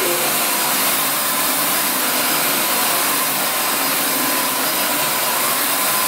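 Narwal S10 Pro cordless wet-dry floor vacuum running steadily in its Smart mode: an even motor and suction noise with a faint high steady tone in it.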